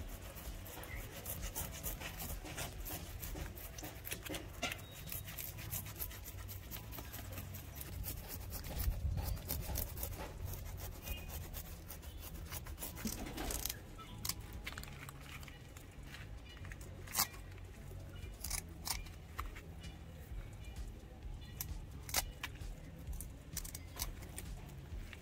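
Knife blade scraping the scales off a needlefish: repeated scratchy strokes with sharp clicks here and there. Near the end, scissors cutting into the fish.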